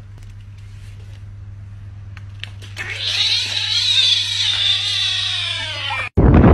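Kitten giving one long, high cry of about three seconds, starting about three seconds in, its pitch rising and then falling away. A low steady hum lies under it. The cry cuts off abruptly and loud rushing, wind-like noise follows.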